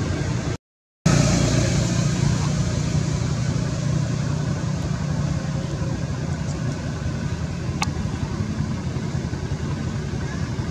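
Steady low rumble of outdoor background noise, with no monkey calls heard. It cuts out to silence for about half a second just under a second in, and a single short click sounds about eight seconds in.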